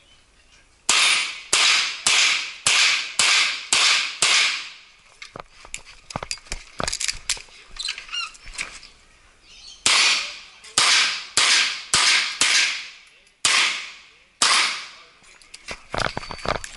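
9mm CZ 85 pistol fired in quick strings, shots a little over half a second apart: about seven shots, a few quieter seconds of small clicks and knocks, then about seven more.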